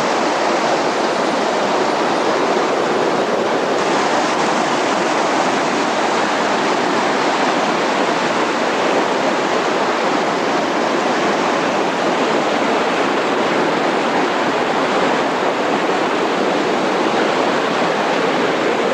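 Waterfall's rushing water: a steady, even rush of falling water.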